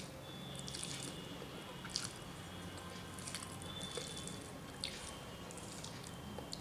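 A person chewing a mouthful of rice and vegetables with wet mouth sounds, punctuated by several sharp wet clicks and smacks about a second apart.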